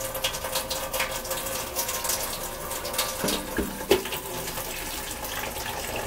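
Water pouring from a plastic pitcher over hair and splashing into a stainless steel kitchen sink, a continuous irregular splashing as the hair is rinsed.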